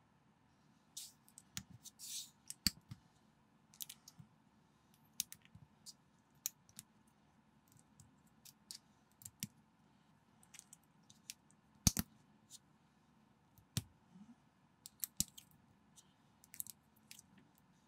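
Small plastic building bricks of a LEGO-compatible set clicking and snapping as they are handled and pressed together. Irregular sharp, quiet clicks, the loudest about twelve seconds in.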